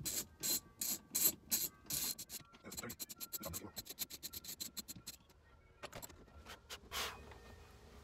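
Socket ratchet clicking as the 16 mm steering-wheel nut is backed off an E36 BMW's steering column: sharp rasping strokes about two or three a second at first, then faster, lighter ratcheting clicks in the middle, thinning to a few scattered clicks near the end.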